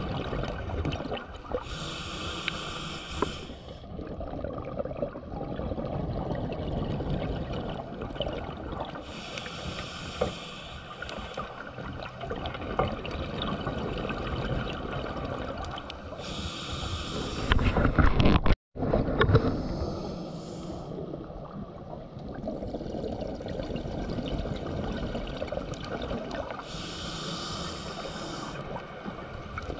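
Scuba diver breathing through an open-circuit regulator underwater: a high hiss of about two seconds comes four times, roughly every seven to eight seconds, with bubbling and a low rumble between breaths. A louder burst of bubbles comes a little past halfway, and the sound cuts out for a moment just after it.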